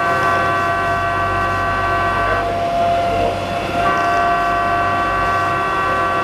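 Boat horn sounding two long blasts of nearly three seconds each, a second and a half apart, over the steady hum of the boat's engine.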